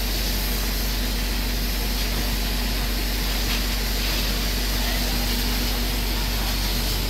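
Steady engine drone with a constant hiss: a fire engine's pump running while firefighters spray water from a hose onto burning waste bins.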